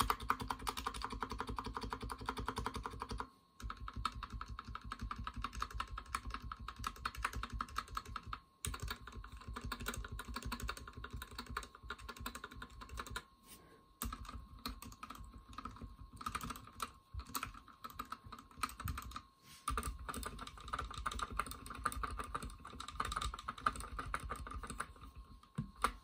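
GK61 mechanical keyboard with Gateron Yellow linear switches typed on rapidly, a dense run of keystroke clicks broken by a few short pauses. This is a sound test of the stabilised keys after the stabilisers were clipped and band-aid modded to stop stabiliser wobble.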